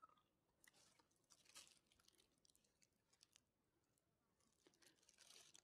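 Near silence, with a few faint, scattered crackles and ticks.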